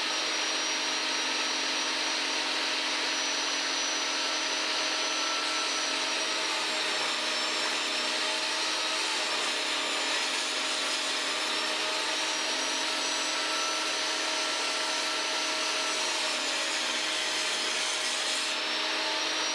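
Power saw running steadily while cutting a hardwood board to length.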